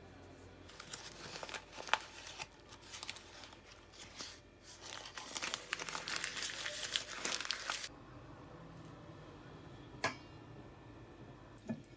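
Paper crinkling and rustling as hands fold it around a piece of Parmesan rind, for about seven seconds, then stopping. A single sharp knock about ten seconds in.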